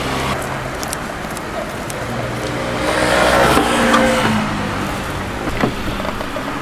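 Street noise with a motor vehicle passing close by, swelling to its loudest about three to four seconds in and then fading.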